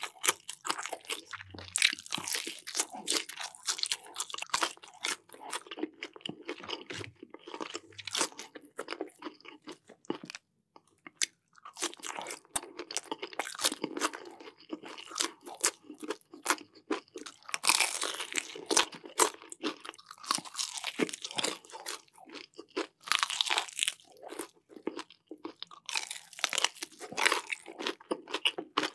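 Crispy breaded fried chicken being bitten and chewed: dense crackling crunches of the fried crust, with a short lull about ten seconds in.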